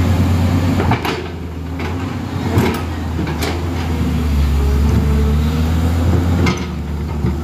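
JCB crawler excavator's diesel engine running steadily under load as the machine travels, its steel tracks giving off sharp clanks every second or two.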